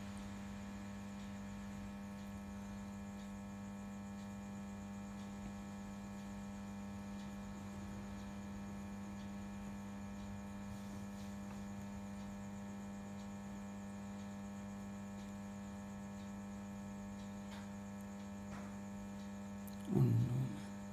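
Steady electrical hum with many even overtones, strongest in a low drone, unchanging throughout. Near the end there is one brief, louder low sound.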